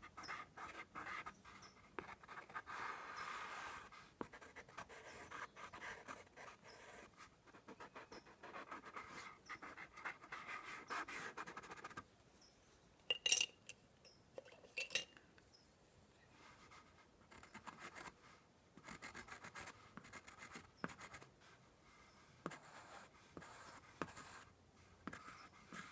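Pastel pencil scratching softly across paper in short, uneven strokes, with a couple of sharper clicks about halfway through.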